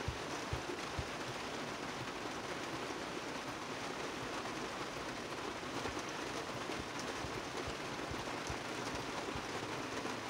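Heavy rain pouring down on a parked truck, heard from inside the cab: a steady hiss, with a few low thuds near the start.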